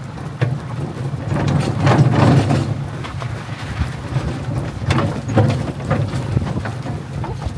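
A dog sled jolting and rattling over a bumpy trail as a husky team pulls it, with a steady low rumble and scattered sharp knocks.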